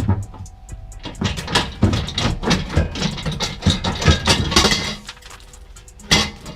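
Metal clanking and knocking as the old exhaust pipe is worked loose under the car: a run of quick knocks and rattles for about four seconds, then a pause and one more knock near the end.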